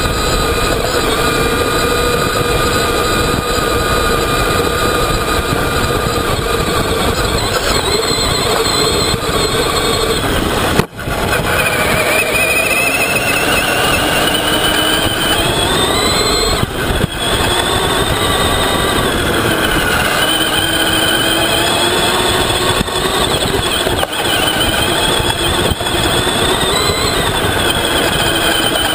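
Traxxas Summit RC truck's electric motor and gearbox whining under throttle while it drives over beach sand, the pitch rising and falling with speed. The sound cuts out briefly once, about eleven seconds in.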